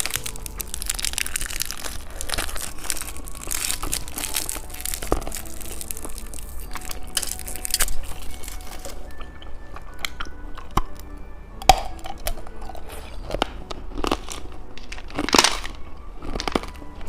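Close-miked eating of a cheese-stick candy: dense crackling and crunching for about the first half, then scattered sharp clicks and short crunches. Faint background music underneath.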